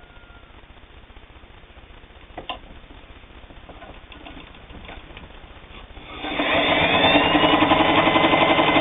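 A single click about two and a half seconds in, then about six seconds in the Singer 223 sewing machine starts up and runs at speed, its motor hum carrying a fast, even stitching rhythm as it sews through eight layers of heavy denim without labouring.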